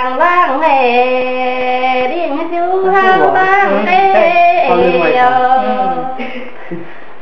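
A woman singing a Chinese folk song unaccompanied, holding long notes with sliding ornaments. The singing ends about six seconds in.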